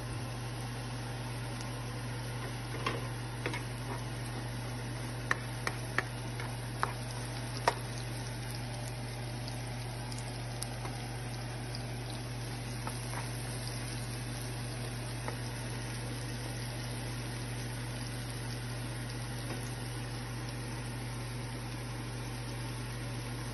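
Chopped onion, tomato and scallion sizzling in oil in a frying pan over a steady low hum. A handful of sharp clicks of a utensil against the pan come between about three and eight seconds in.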